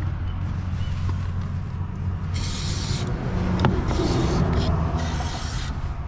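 Aerosol spray can hissing in three short bursts, each well under a second, as a rust-proofing coating is sprayed through its straw onto steel parts, over a steady low hum.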